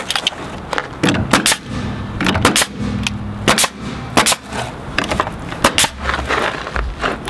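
A pneumatic coil siding nailer firing nails into rough-sawn wood fender boards: a series of sharp shots, about a dozen, spaced irregularly and some in quick pairs.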